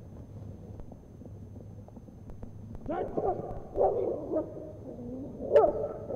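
IGP protection bite work: a dog grips the helper's padded sleeve while being driven. From about three seconds in come loud, breaking vocal sounds, and a single sharp crack near the end is the loudest moment.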